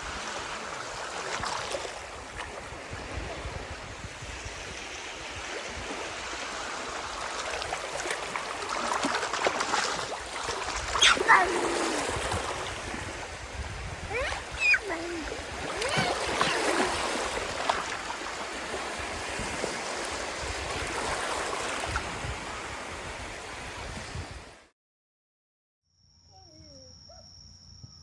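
Steady rushing water noise with a few brief high voices or calls over it, cut off suddenly after about 24 seconds; then a faint steady high tone with small chirps.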